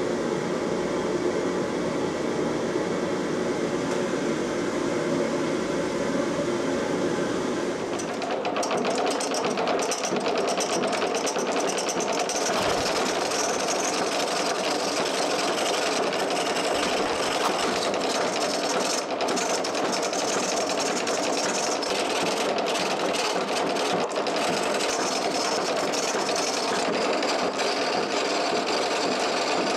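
A steady rushing noise for about the first eight seconds, then a hand chisel scraping and cutting a spinning beech-wood handle blank on a treadle lathe, with a quick mechanical clatter from the lathe.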